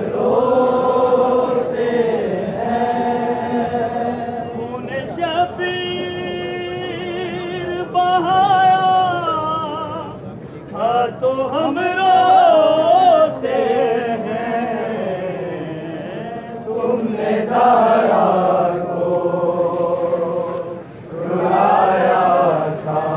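Men chanting a noha, the Urdu mourning lament, as a group in long held, wavering sung lines, with short breaks between phrases.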